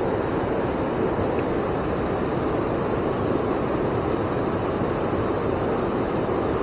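Swollen river rushing steadily, a fast, high current running in spring flood.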